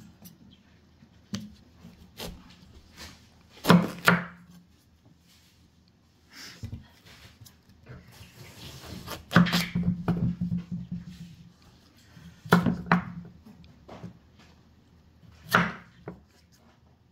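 Chef's knife cutting a round green squash on a wooden cutting board: irregular knocks of the blade through the squash and onto the board, a few seconds apart, the loudest about four, ten, thirteen and fifteen seconds in.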